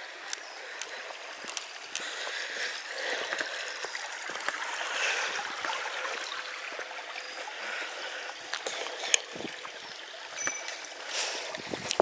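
Small woodland stream babbling and trickling steadily, with scattered light clicks.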